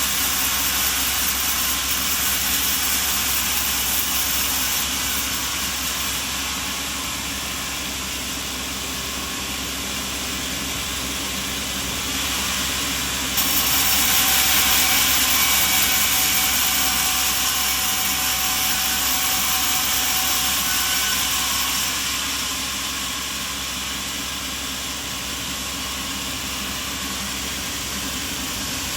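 Sawmill machinery running steadily, a dense whirring hiss over a low hum, with an abrupt jump in level about 13 seconds in.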